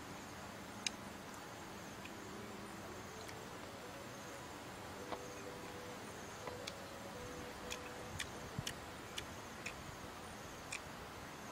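Faint, scattered small sharp clicks from fingers picking through roasted weaver ants in a metal pan, coming more often in the second half, over a steady low background hiss.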